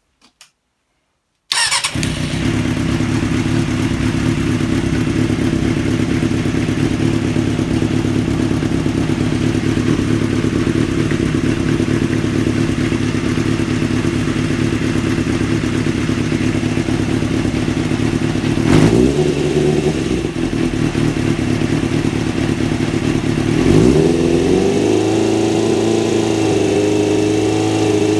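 Kawasaki ZXR race bike's four-cylinder engine starting up abruptly about a second and a half in and running steadily. It is blipped once partway through, then revved and held at a higher steady speed near the end while the alternator's charging is checked.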